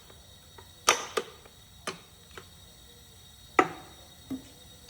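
Sharp clicks and knocks of metal parts being handled on a jig grinder, five or six at uneven intervals, each dying away quickly.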